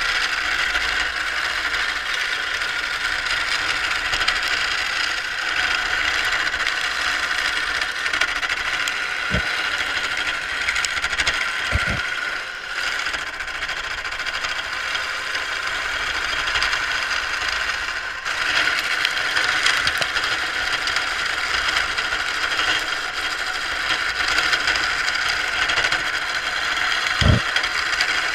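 A carbide turning tool cutting a spinning wooden spindle on a Craftsman wood lathe: a steady scraping cut over the running lathe, growing a little louder past halfway. Three short low knocks break in, two close together about a third of the way in and one near the end.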